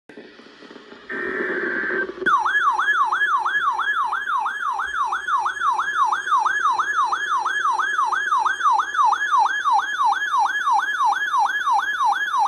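Emergency alert broadcast tone between flash flood warnings: a brief buzzy data burst, then a loud electronic warbling tone that sweeps up and down about three times a second for roughly ten seconds before cutting off.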